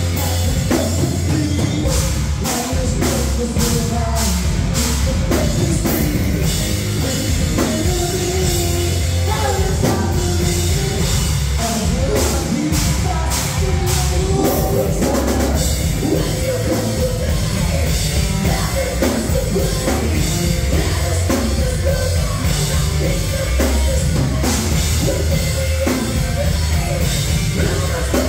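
Live rock band playing a heavy song: electric guitar, bass guitar and a pounding drum kit, with a vocalist singing into a microphone.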